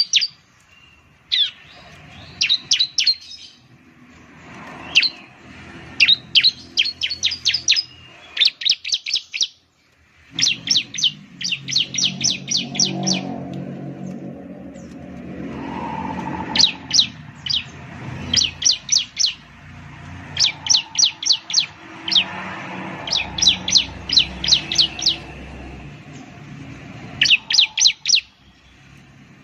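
Bar-winged prinia (ciblek) singing: fast runs of sharp, high chirping notes, each run about a second long, repeated over and over with short pauses. A low background rumble runs under the middle part.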